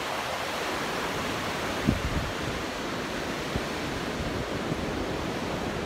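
Steady wash of ocean surf breaking on a sandy beach, with a brief low bump about two seconds in.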